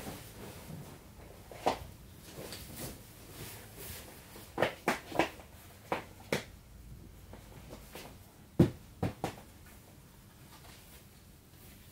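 Handling noises: scattered knocks and clicks over faint rustling, about nine in all, in small clusters, with the loudest knock about three-quarters of the way through.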